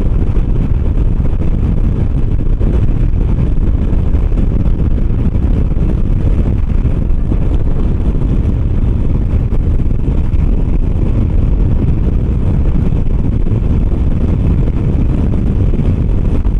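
Steady low rush of wind buffeting the camera microphone, with road noise, while riding a 125 motor scooter at speed.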